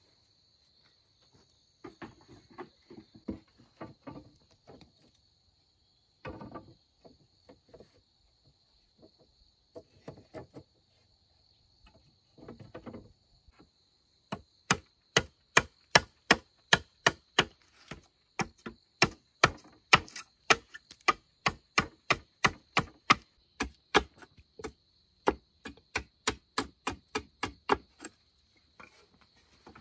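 Tool strikes on bamboo: a few scattered knocks and rustles at first, then from about halfway a fast, even run of sharp knocks, about two a second.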